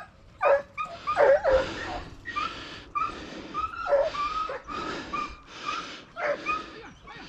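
Hunting hounds yelping and baying in a steady run of short cries, roughly two a second: dogs giving tongue while chasing a rabbit.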